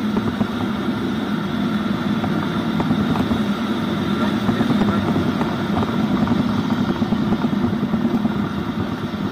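TVS Ntorq 125 scooter's single-cylinder engine running steadily at cruising speed, around 60–69 km/h, mixed with the rush of wind over the handlebar-mounted microphone.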